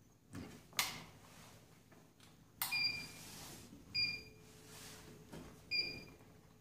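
Control panel of an RG-202 smartphone dryer beeping three times as its arrow buttons are pressed: each press is a click followed by a short high beep, as the temperature-clearance setting is stepped. One earlier click has no beep.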